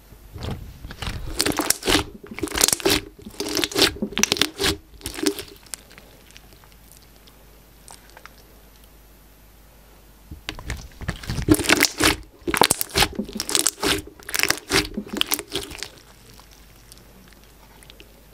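Glossy slime with charms and fruit slices mixed in, being stretched and pulled, giving off a dense run of crackles and pops. It comes in two bouts of about five seconds each, with a quiet gap of about five seconds between them.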